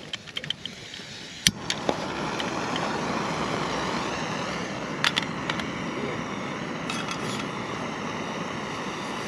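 Jetboil gas stove being lit: small clicks as the burner is handled, then a sharp click about a second and a half in as it lights, followed by the steady hiss of the gas flame burning. A few knocks come as a cooking pot is set on the stove.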